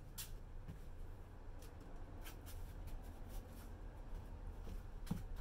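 Faint handling noises: a few scattered clicks and rustles of plastic skincare packaging being worked open, with a slightly stronger knock near the end, over a low steady room hum.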